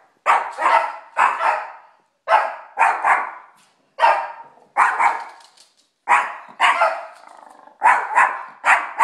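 A small terrier barking over and over, with sharp, high barks that often come in pairs, one or two a second, and short pauses between them.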